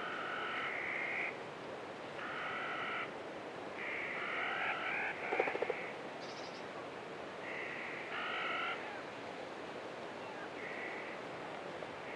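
Short animal calls, each about a second long, repeated every two seconds or so over a steady wind-like hiss, with a brief rattle near the middle.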